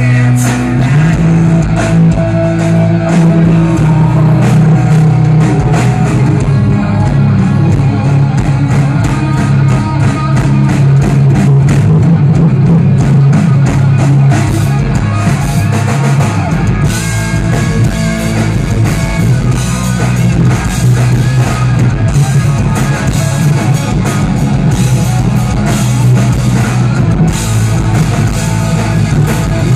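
Live rock band playing loudly, with electric guitar and drum kit.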